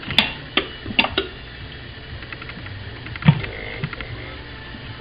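Light clicks and taps of kitchen utensils being handled and struck: four sharp clicks in the first second and a half, then a single louder knock with a brief faint ring about three seconds in.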